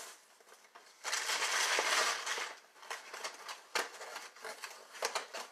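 Plastic cereal bag liner crinkling and rustling as it is folded shut: a stretch of steady rustle, then a run of irregular crackles and clicks.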